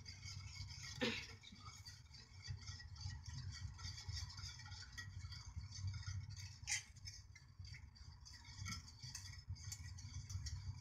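Wire whisk stirring a liquid mixture in a metal saucepan: light, irregular clinks and scrapes of the wires against the pan, over a steady low hum.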